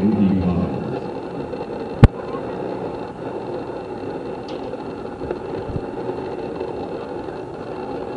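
Ballpark background noise: a steady low hum with faint voices, broken about two seconds in by one sharp, very loud crack.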